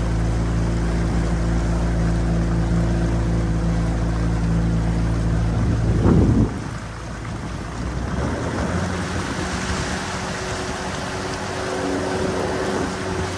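A small boat's outboard motor running steadily under way, with water and wind noise. About six seconds in there is a brief loud rush, and then the engine note changes and sounds lighter.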